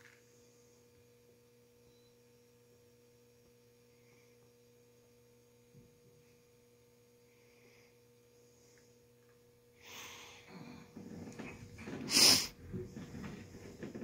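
Faint steady low electrical hum from a MotoMaster battery charger. About ten seconds in, rustling and knocking start, with one sharp loud clack a little after twelve seconds. No engine is cranking or running.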